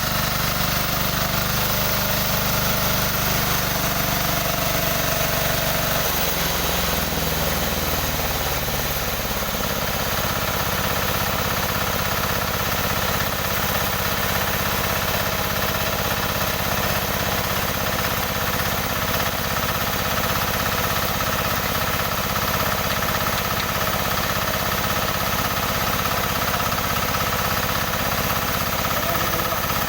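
Engine of a newly assembled sawmill running steadily on test. Its low hum changes for a few seconds about six seconds in, then settles back into an even drone.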